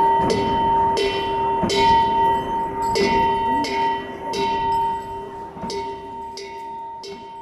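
Ritual cymbals and large hand-held drums played by Buddhist monks as cham dance music: repeated cymbal clashes about once a second, each leaving a long metallic ring over drum beats. The music fades away near the end.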